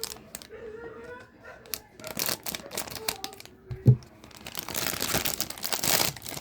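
Toy blind-bag packaging crinkling and tearing as it is opened by hand, with a sharp knock a little before the crinkling grows loud and continuous in the second half.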